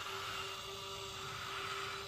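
Electric drive motor of a Huina RC construction model running at a steady speed: one even, unchanging whine.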